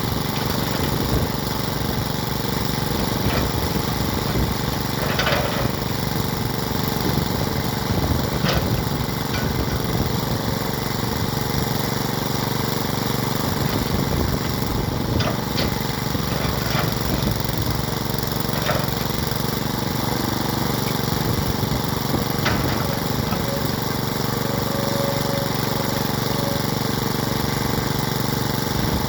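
Kobelco SK200 hydraulic excavator's diesel engine running steadily, with a few brief sharp clicks now and then.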